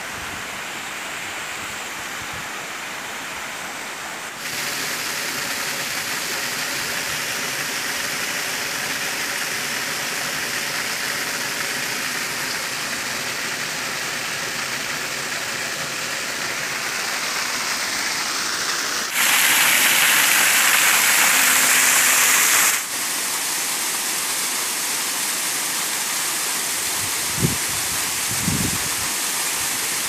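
Small waterfall, several thin streams of water falling over a low rock ledge into a pool: a steady rush of falling and splashing water. Its loudness jumps abruptly a few times, stepping up about four seconds in and at its loudest and brightest for a few seconds past the middle.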